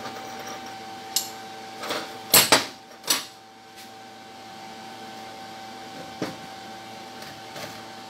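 Small steel test pieces clinking and knocking on a steel welding table as they are handled with pliers: a handful of sharp metal knocks, the loudest pair about two and a half seconds in. A steady hum runs underneath.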